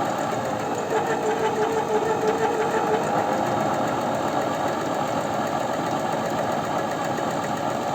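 Janome Sewist 509 domestic sewing machine running steadily at speed, its electric motor whining as it stitches a test seam through fabric.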